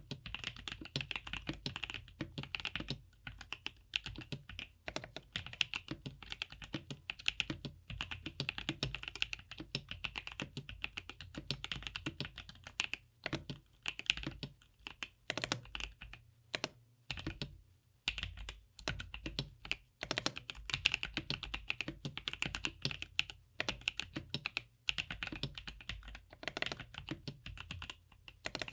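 Typing on a GrayStudio Think 6.5 V2 mechanical keyboard with DesignerStudio White Jade tactile switches on an FR4 plate, Poron plate foam and silicone bottom foam: a fast, steady run of keystrokes with a few short pauses.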